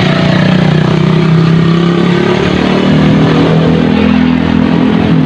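Motor traffic on a street: a nearby motorcycle or car engine runs steadily, its pitch stepping up about three seconds in, over road and wind noise.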